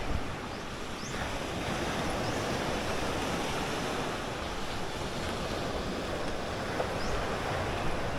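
Small waves washing steadily onto a rocky shore of coral stones.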